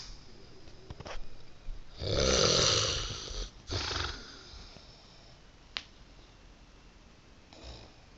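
Snoring: one long, loud snore starting about two seconds in, then a shorter snore a moment later, and a faint one near the end. A brief sharp click falls between them.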